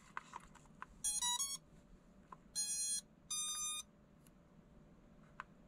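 Holy Stone HS360 drone powering on and playing its start-up tones: a quick run of short electronic chirps about a second in, then two longer beeps, the second higher than the first.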